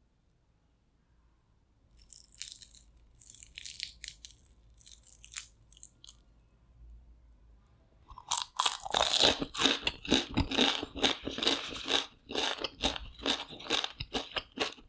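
Crispy deep-fried shredded-potato balls crunching as they are bitten and chewed, close to the microphone. A few sharp crunches come about two seconds in, then dense, rapid crunching from about eight seconds in.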